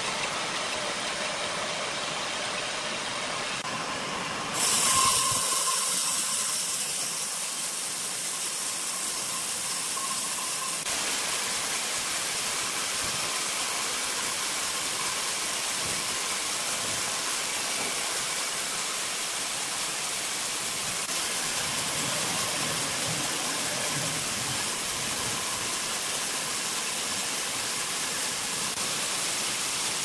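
Large horizontal band sawmill running and sawing through a big log, a steady hissing machine noise. The sound changes abruptly about five seconds in, with a brief louder surge, and again near eleven seconds.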